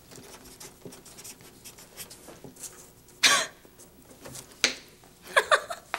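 Pen writing quietly on paper. One short cough about three seconds in, and a brief murmured voice near the end.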